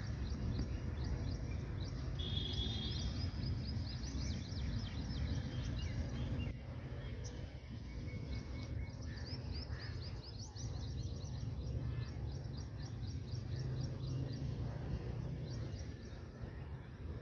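Many small birds chirping, with quick, repeated high calls throughout and a brief steady trill about two seconds in, over a continuous low rumble of outdoor background noise.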